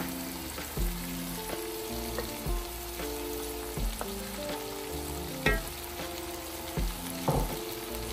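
Fried bitter gourds and onions sizzling in a hot pan of chana daal, with a few sharp knocks of a utensil against the pan.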